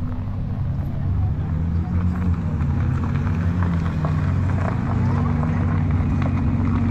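Car engine running, its pitch slowly rising and falling, over the chatter of a crowd.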